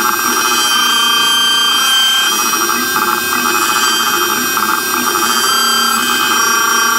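CNC trim-router spindle running with a steady high whine while a 60-degree V-bit cuts lettering into red oak at a slow feed. Lower buzzing tones from the stepper motors shift and switch every second or so as the gantry changes direction.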